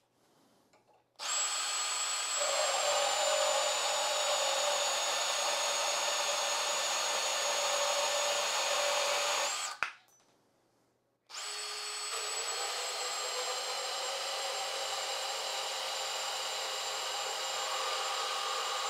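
DeWalt DCS377 cordless brushless compact bandsaw running, with a steady high whine. It starts about a second in, runs for about eight seconds, stops briefly, then starts again and runs on.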